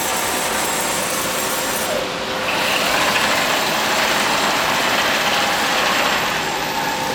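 DAMA HDC 1640 high-speed CNC drilling machine running, with a steady mechanical noise of spindle and drilling. It gets louder about two and a half seconds in and eases off near the end.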